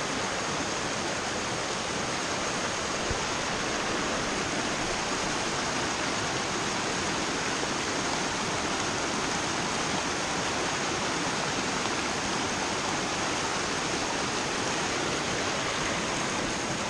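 A small mountain creek, with a little waterfall close by, rushing steadily in an even, unbroken hiss.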